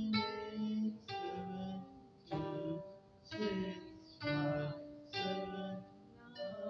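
Koto being plucked one string at a time: a slow phrase of single ringing notes, about one a second, as a learner works through a string-number sequence (9, 8, 7, 2, 6, 5, 7).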